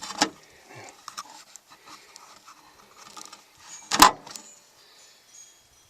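Hand tools clinking and rattling against metal in short scattered clicks, with one sharp, loud metallic knock about four seconds in.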